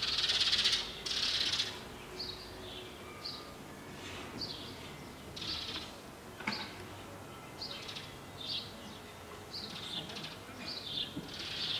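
Small birds chirping: short, high calls, many falling in pitch, repeated every half second or so, with a louder hissing rasp in the first second and a half.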